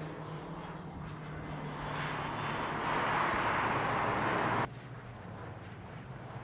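A car engine runs steadily under a rushing noise that swells for a couple of seconds, then cuts off suddenly about four and a half seconds in.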